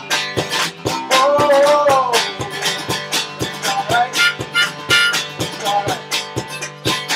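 One-man band playing an instrumental passage: strummed acoustic guitar, a rack-held harmonica sounding chords that bend in pitch, and a foot-pedal kick drum keeping about two beats a second.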